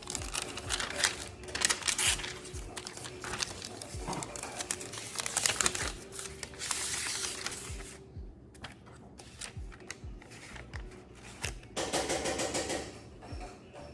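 Packaging being handled: crinkling, rustling and a run of small clicks and taps, with two longer rustles about halfway through and near the end. Background music with a steady beat plays underneath.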